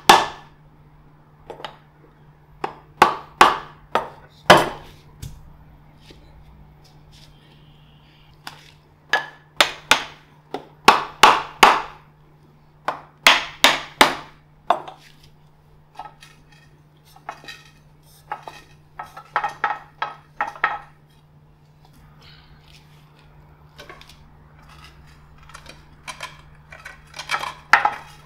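A wooden mallet knocking on the wooden pole lathe and bowl blank, sharp blows in bunches of two to four with pauses between, setting the blank between the lathe's centres.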